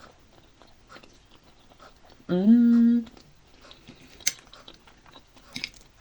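A person chewing a mouthful of soft cabbage vareniki, with faint small clicks and smacks. About two seconds in comes a short closed-mouth "mmm" of approval that rises, then holds.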